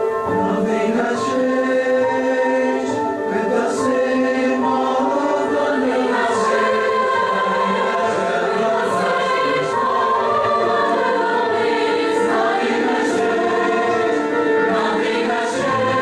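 A choir singing a song in several parts, played back from a Type 1 normal-bias compact cassette as an audio test.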